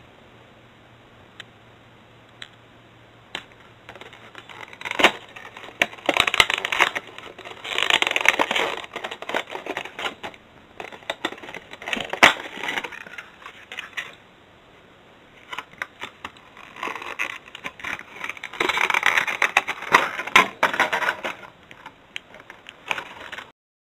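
Clear plastic blister packaging being handled and pried open, crinkling and crackling with many sharp clicks and snaps in two long spells, with a short lull between. The sound cuts off suddenly near the end.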